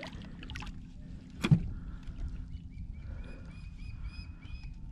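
Handling a freshly caught small goliath grouper on a lip grip at the kayak's side: one sharp knock about a second and a half in, over a low steady rumble. From about two seconds in, a run of short, evenly spaced high chirps, about three a second, sounds in the background.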